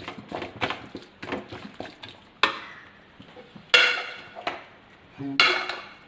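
Metal spoon or ladle working in a metal cooking pan: quick scraping clinks for the first couple of seconds, then three sharper ringing knocks of metal on metal about a second and a half apart.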